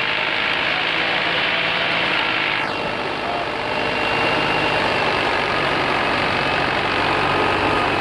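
Paddy thresher running steadily with a loud, even mechanical noise as rice straw is fed through it.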